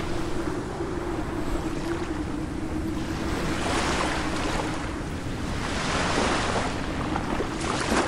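Ocean surf: a steady rush of sea waves, swelling as a wave washes in about four seconds in, again around six seconds and near the end. A faint steady low hum runs underneath.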